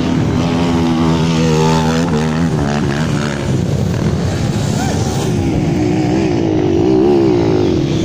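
Trail motorcycle engines running hard on a steep dirt climb, revving. The pitch holds steady for about two seconds, then rises and falls in revs near the end.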